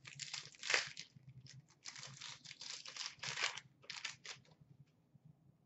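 A Panini Certified hockey card pack being torn open, its wrapper crinkling and tearing in a quick run of crackles that stops about four and a half seconds in.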